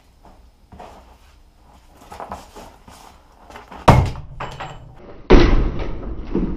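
A sledgehammer smashing into an old wooden workbench: a sharp crack about four seconds in, then a heavier crash with debris clattering after it near the end.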